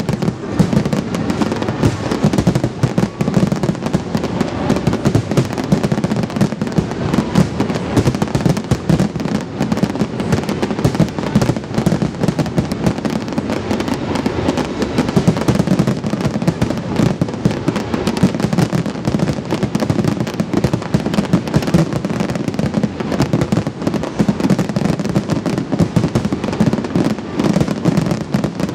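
Aerial firework shells bursting in a dense, unbroken barrage of overlapping booms and crackles, with no pause.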